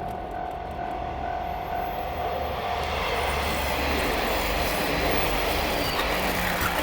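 Level-crossing warning signal ringing as the Kawasemi Yamasemi diesel limited express, a converted KiHa 47 railcar set, passes; the rumble of engine and wheels swells about three seconds in and drowns out the signal.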